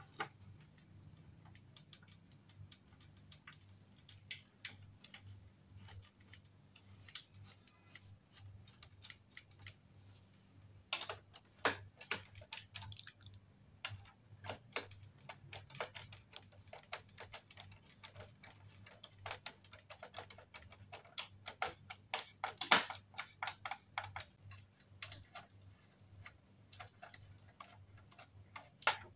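Hand screwdriver driving screws into a wooden cot frame: a run of small irregular clicks and scrapes as the screws are turned, with busier, louder stretches about 11 and 22 seconds in.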